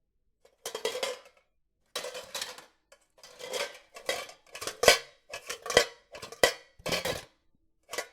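Cutlery and dishes clattering: a series of about ten short bursts of scraping and clinking, with a few sharp metal-on-crockery clinks in the middle.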